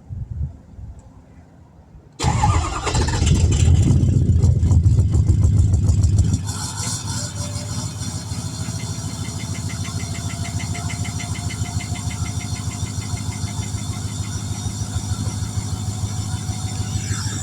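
Ford 6.0 Powerstroke turbo-diesel V8 cold-starting: it fires about two seconds in, runs at a loud fast idle for about four seconds, then settles to a steady idle with diesel clatter. A faint turbo whine rises slowly through the idle, and the owner puts the knock down to cold fuel knock on a chilly morning.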